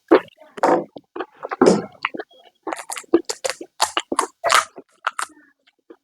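Close-miked eating: a quick run of crisp crunches and wet chewing, a person eating crunchy snack food (panipuri shells and chatpate) in mukbang style.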